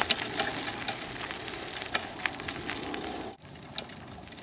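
Wheels of a dog-drawn sulky rolling over a gravel-and-dirt trail: a steady crunching rustle with scattered sharp ticks. About three and a half seconds in it drops suddenly to a quieter, smoother rolling noise on pavement.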